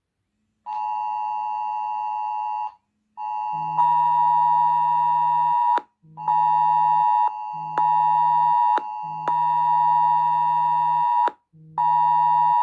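Mobile phone's emergency alert attention tone: a loud, harsh two-tone alarm sounding in repeated blasts of one to two and a half seconds with short gaps. About three and a half seconds in, a low buzz from the phone's vibration starts under each blast, marking the UK Emergency Alerts test broadcast.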